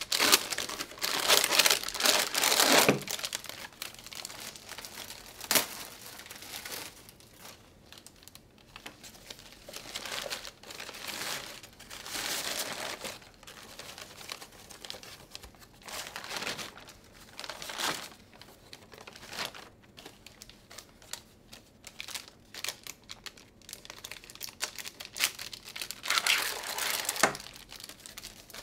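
Plastic bag and paper wrap of a medical pack crinkling and rustling as it is opened and the paper unfolded, loudest during the first three seconds, with shorter bursts of rustling through the rest and another louder one near the end.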